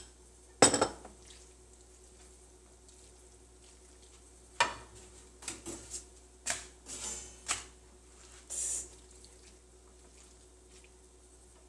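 Spoon knocking and scraping against a pan while stirring a thick filling: one sharp knock near the start, then a run of clinks and scrapes in the middle.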